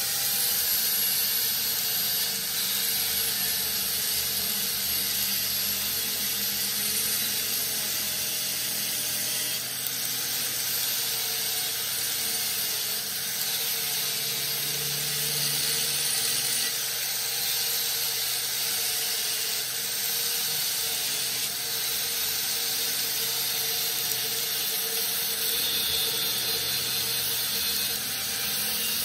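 Angle grinder running steadily, its disc grinding the end of a rusty steel bar: a constant motor whine under the hiss of the disc on metal.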